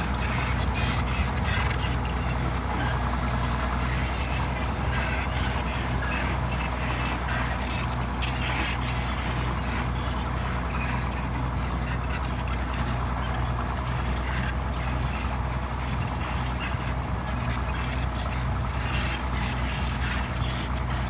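Bulldozer's heavy diesel engine running steadily under load, with scattered metallic clanks and knocks.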